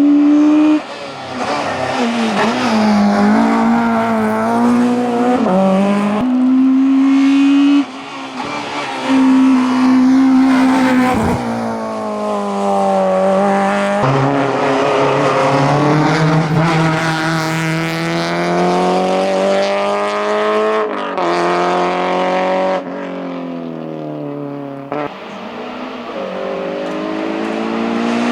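Hillclimb race car engine revving hard, its pitch climbing and dropping back again and again through gear changes and lifts, with some tyre squeal.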